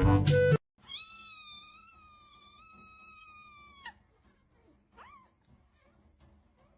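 A pet animal gives a long, steady, high-pitched call lasting about three seconds, then a short call that rises and falls about a second later. Brass music cuts off half a second in.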